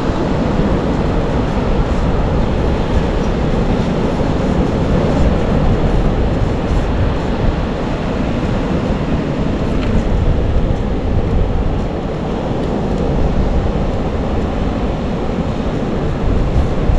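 Wind buffeting the microphone at the beach, with surf behind it: a steady, deep rush with no break.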